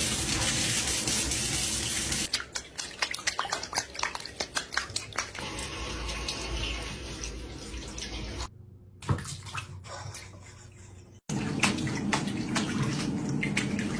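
Water running and splashing, with many small splashes and clicks over a steady rush; it breaks off abruptly twice in the second half.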